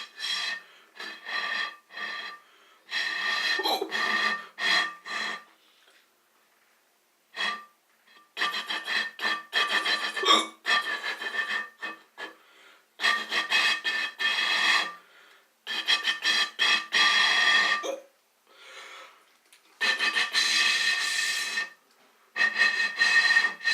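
A buzzy, high-pitched electronic tone keeps the same pitches throughout and sounds in repeated bursts of uneven length, from short blips to stretches of about two seconds, with brief silent gaps between.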